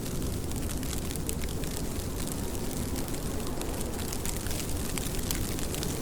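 Steady rain: a dense, even hiss with many separate drops ticking sharply on a surface and a low rumble underneath.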